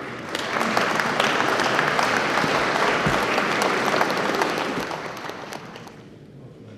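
Audience applauding, the clapping coming in about half a second in, holding steady, then fading away over the last couple of seconds.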